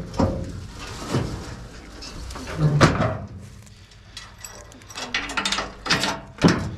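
Metal farm trailer knocking and clanking as it is loaded with olive branches: a series of sharp knocks, the loudest about three seconds in, with a quick cluster near the end.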